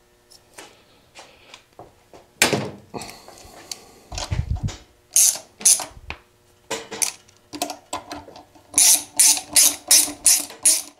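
A hand socket ratchet clicking as it tightens a mounting fastener on a motorcycle's voltage regulator. The clicking comes in short runs of strokes, fastest near the end. A louder knock and clatter of metal comes about two seconds in.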